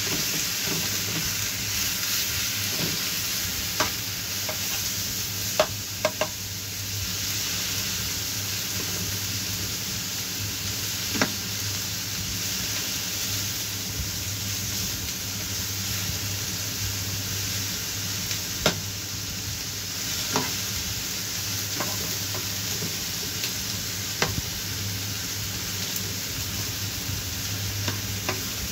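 Sliced beef and onions sizzling in a frying pan, stirred with a spatula that knocks and scrapes against the pan now and then in sharp clicks. A steady low hum runs underneath.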